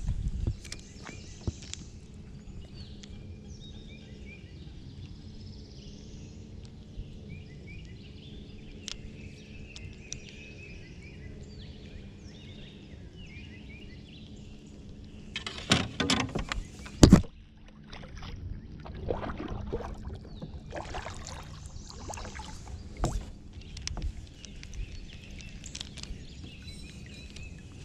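Calm outdoor ambience from a kayak on a lake, with a steady low hum and faint bird chirps. About halfway through come a few sharp knocks, then more rustling and knocking as fishing tackle is handled against the plastic kayak.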